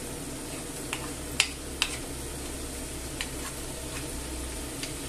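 Penne, sausages and tomato sauce sizzling gently in a frying pan while being stirred, with a few light clicks of the wooden spatula and fork against the pan.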